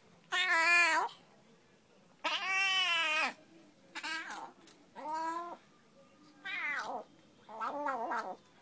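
Domestic cat meowing repeatedly, about six separate meows, the second one the longest at about a second.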